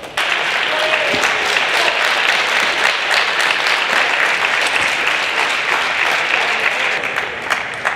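Audience applauding in a sports hall, starting suddenly and tapering off near the end.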